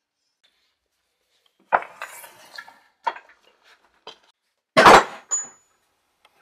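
Tools and workpieces clinking and knocking on a workbench, metal against metal and wood: four or five separate strikes, the loudest just under five seconds in, with a brief high metallic ring after it.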